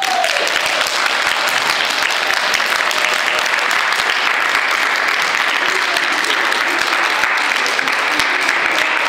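A large audience of young children applauding: many hands clapping in a dense, steady patter.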